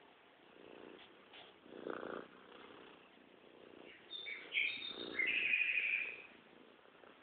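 An animal's breathy rumbling that swells and fades every second or so, with a cluster of high chirping calls from about four to six seconds in.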